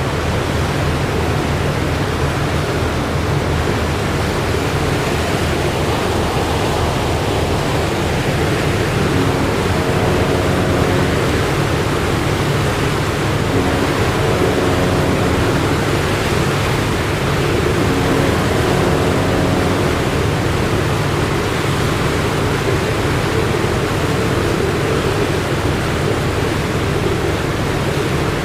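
A ship's engine drones steadily under a constant rush of water. Faint tones come and go three times in the middle.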